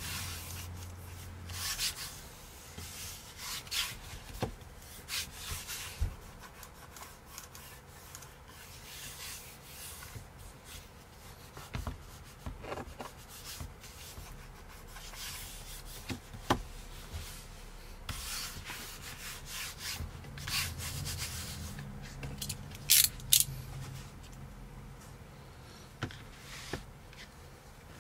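Hands rubbing and pressing a carbon-fibre vinyl skin onto a MacBook palm rest, in short intermittent brushing strokes. There are a few sharp clicks, the loudest two close together about two-thirds of the way through.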